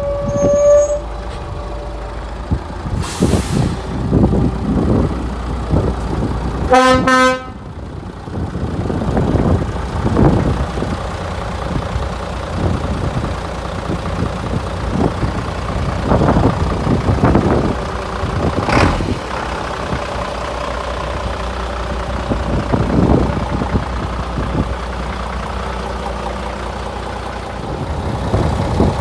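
Scania P93 hooklift truck's diesel engine running, its level swelling and easing several times. A short hiss of compressed air about three seconds in, a brief horn toot around seven seconds, and another air hiss a little before twenty seconds.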